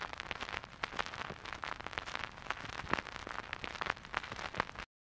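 Vinyl record surface noise: a faint, dense, irregular crackle of clicks over a steady hiss, cutting off suddenly near the end.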